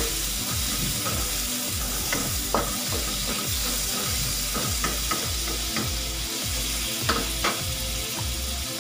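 Wood ear mushrooms and carrots sizzling in oil in a wok, stirred with a wooden spatula that scrapes and taps against the pan now and then.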